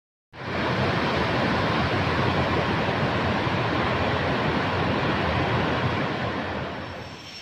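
Steady rushing of a waterfall pouring into a rock pool, fading out near the end.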